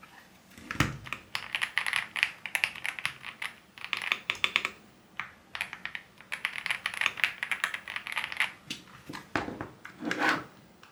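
Typing on a GravaStar Mercury mechanical keyboard: rapid clacking key presses in two runs with a short pause between them, then a couple of heavier knocks near the end.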